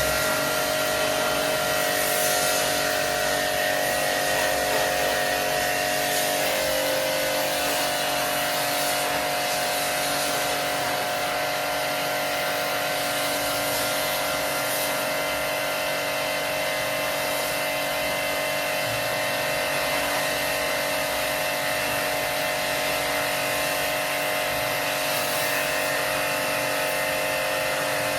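An electric motor running steadily, a constant whine of several tones over a hiss.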